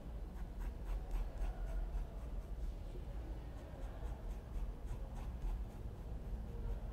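Pencil sketching on paper in a sketchbook: many short scratching strokes in quick succession, over a steady low hum.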